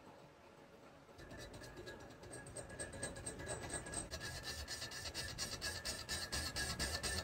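Metal lathe turning a large round metal workpiece, the cutting tool scraping across the spinning metal. The sound starts about a second in and grows steadily louder, with a steady high whine and a fast, regular ticking.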